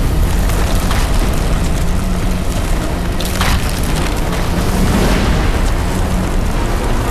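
War-film air raid sound effects: a continuous heavy rumble of booming explosions, with sharper blasts about one second and three and a half seconds in.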